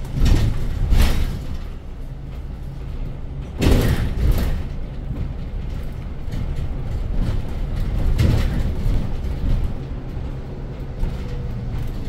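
Cabin noise of a Hyundai Elec City electric bus on the move: a steady low hum, broken by three louder rattling surges near the start, about four seconds in and about eight seconds in.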